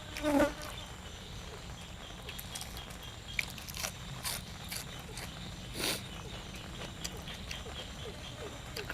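A person eating close to the microphone: chewing and biting with scattered crunches and wet mouth clicks, and a louder short mouth sound just after the start.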